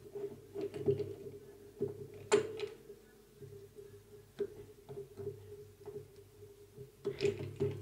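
Scattered small clicks and plastic knocks of a screwdriver working a terminal screw on a push-button contact block, the sharpest about two and a half seconds in, over a steady low hum.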